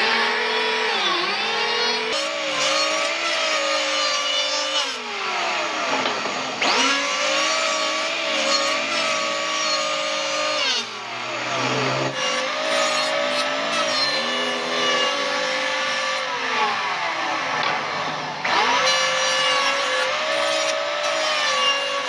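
Electric power tool motor running at high speed, its whine sagging in pitch and climbing back several times, about every five to six seconds, as it bogs down under load on the wood.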